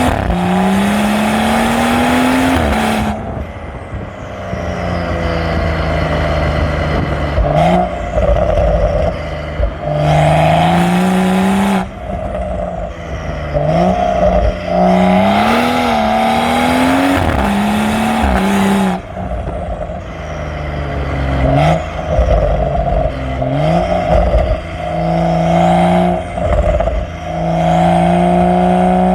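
BMW M135i's turbocharged N55 straight-six exhaust, decat and with the middle silencer deleted, heard from just above the tailpipe. The engine pulls hard up through the revs several times, for a couple of seconds each, with short lift-offs in between.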